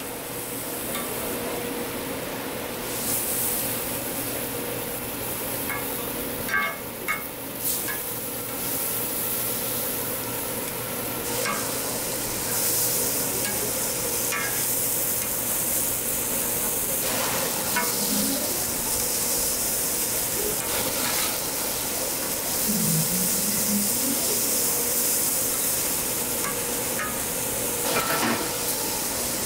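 Cabbage-and-egg toast patties frying in butter on a flat steel griddle, a steady sizzle, with a metal spatula now and then knocking and scraping on the plate.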